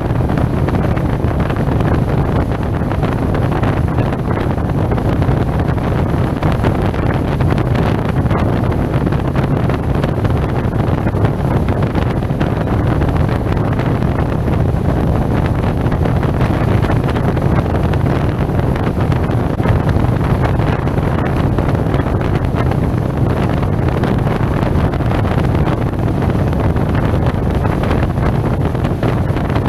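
Steady wind rush on a helmet-mounted action camera's microphone while riding a SYM Maxsym TL 508 maxi-scooter, with the scooter's engine and road noise underneath at an even, gentle pace.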